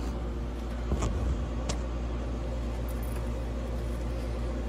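Steady low hum of the opened USI combo vending machine running, with a couple of light clicks and knocks about a second in and again shortly after.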